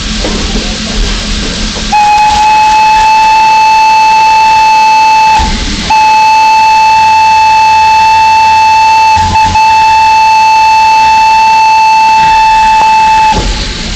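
Steam locomotive whistle blowing one steady high note, very loud, in two long blasts. The first starts about two seconds in and lasts about three seconds. After a half-second break the second is held for about seven seconds. Before the whistle there is the hiss and rumble of the engine.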